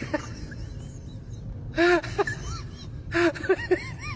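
Short animal calls, each rising and falling in pitch: two louder ones about two and three seconds in, with fainter high chirps between them, over a steady low rumble.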